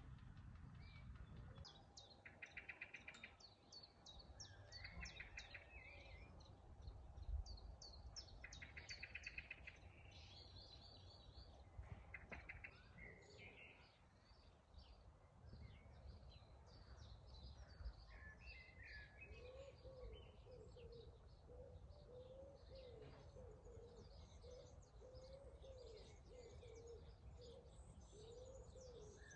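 Faint garden birdsong: small birds chirping, with several short buzzy trills in the first half. From about two-thirds in, a low call repeats steadily.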